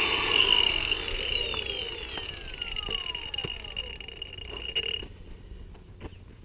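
Cordless Makita angle grinder finishing a cut through thin sheet steel, then released and spinning down, its whine falling over about four seconds and stopping about five seconds in. A few light knocks as it is set down and the cut piece is handled.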